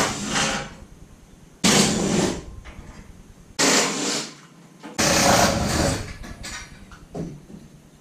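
Impact driver fitted with a 15 mm 12-point socket, hammering in short bursts as it backs the bolts off old garage door tracks. There are about four bursts of half a second to a second each, with a brief one near the end.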